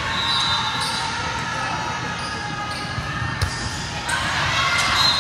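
Volleyball being hit during a rally in a gym, several sharp smacks of the ball, over a constant hubbub of players' and spectators' voices.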